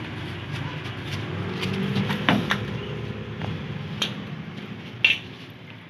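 Low traffic rumble from the street and a glass shop door being pushed through, with a few knocks and a sharp clack about five seconds in, after which the background noise drops.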